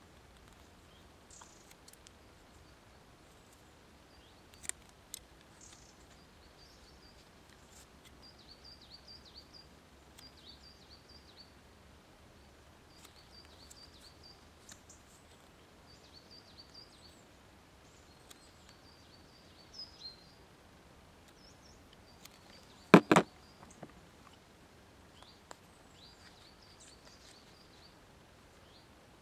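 Quiet outdoor ambience with a small bird repeating short, high chirping phrases every second or two. A few faint clicks of handwork come near the start, and one short, louder sound comes about three-quarters of the way through.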